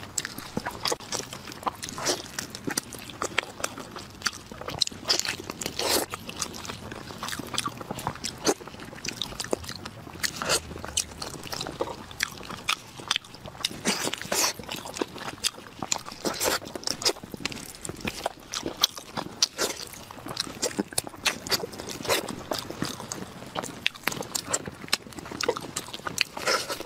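Eating sounds: meat being bitten into and chewed, with many irregular wet clicks and crackles, and gloved hands tearing the meat apart and off the bone.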